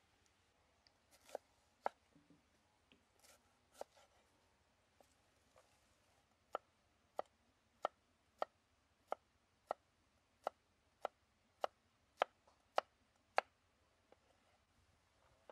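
Knife chopping on a cutting board. A few scattered knocks come first, then a steady run of about a dozen sharp chops a little under two a second.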